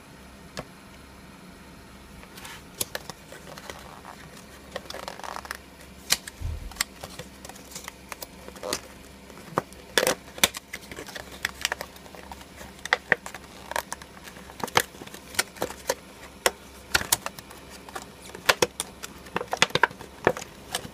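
Parcel packaging being opened and handled: irregular crinkling, crackling and sharp clicks of plastic wrapping and a small packaged device being moved about.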